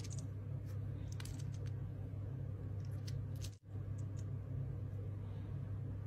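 Faint light clicks and ticks of small miniature drink cups being handled and tapping together as they are gathered into a hand, over a steady low hum.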